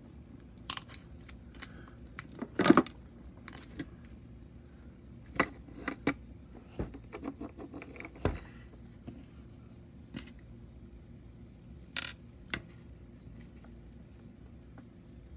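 Scattered clicks and knocks of a hard plastic TrackMaster toy engine shell being handled, turned over and set down on a table. The loudest is a clatter between two and three seconds in, with a run of small clicks in the middle and a sharp knock about twelve seconds in.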